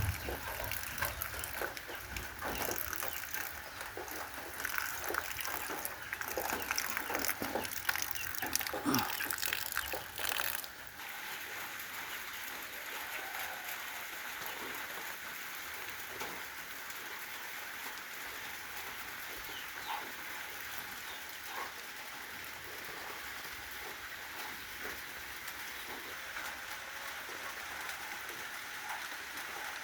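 A clatter of short knocks and rustling for about the first ten seconds. Then, after an abrupt change, a steady even hiss with a faint chirp now and then.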